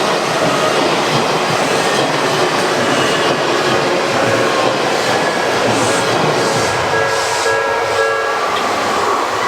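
Train passing at close range over a level crossing: a loud, steady rush of wheels on rail.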